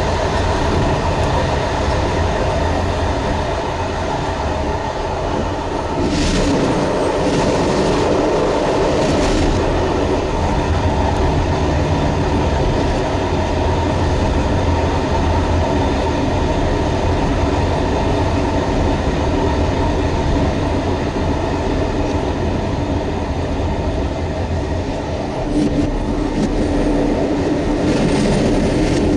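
Train running at speed, heard from inside the locomotive cab: a steady drone of the traction and running gear. Bouts of wheel clatter come about six to nine seconds in and again near the end.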